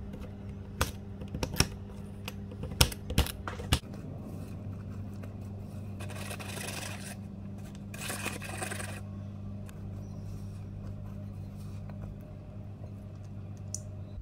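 Kitchen knife chopping a bar of chocolate on a cutting board: a run of sharp knocks over the first four seconds. Then two short rustling hisses as flour goes from a paper bag into a glass bowl, over a low steady hum.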